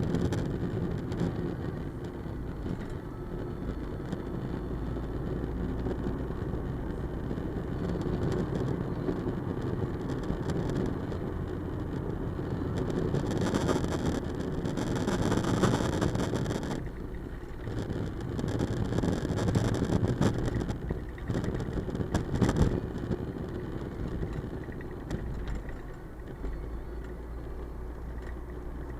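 Road vehicle driving: steady engine and road rumble, swelling louder twice around the middle.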